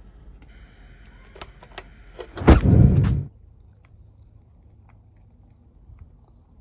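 Metal motor parts being handled while taking the motors apart: a few light clicks, then a loud clatter lasting under a second about two and a half seconds in.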